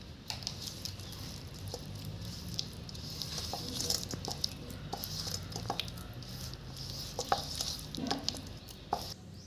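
A hand mixing thick, wet chilli-masala marinade paste in a stainless steel bowl: a steady fine wet crackle with scattered small clicks.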